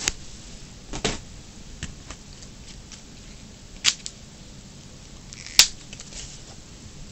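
A few sharp clicks and taps from hands fitting a pull chain to a small paper model fan, the loudest about four and five and a half seconds in.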